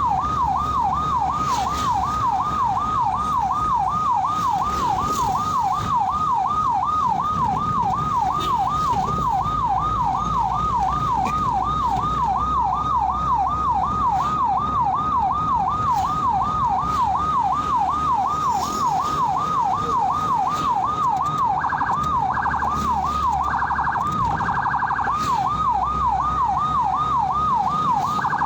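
Ambulance electronic siren on the yelp setting: a rapid, continuous rising-and-falling wail. From about three-quarters of the way in, a second higher pulsing tone cuts in on and off, over a low rumble of the moving vehicle.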